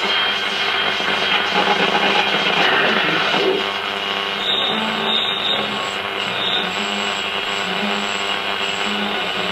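Selena B210 transistor radio tuned to a medium wave station, playing rock music through its speaker, with a steady whine behind the broadcast from interference.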